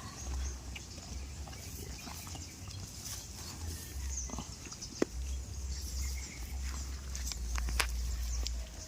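Goats moving and feeding close by, with scattered knocks and clicks over a low, uneven rumble; a sharp click comes about five seconds in, and another near eight seconds.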